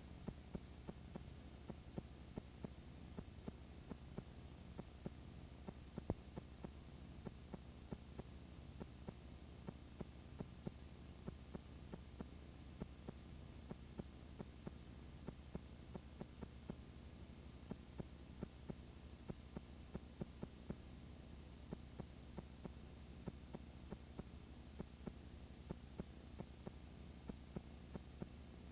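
Faint steady hum with soft clicks about twice a second from a VCR playing blank, unrecorded videotape.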